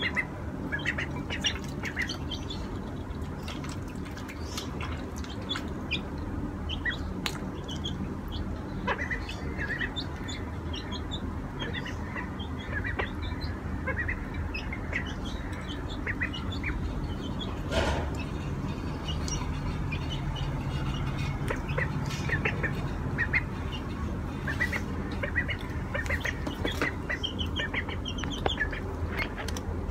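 Ducklings and a chick calling with many short, high peeps scattered throughout as they feed on peas, with a few sharp clicks.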